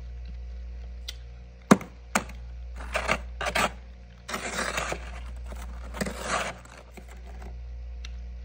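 A utensil working the built-up frost inside a freezer: two sharp taps, then three rough scrapes of half a second to a second each. A steady low hum runs underneath.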